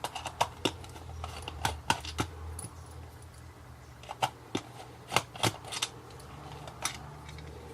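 Scattered light clicks and taps of a small screwdriver backing out the screws of a small plastic LED tester case and of the case being handled and pulled open.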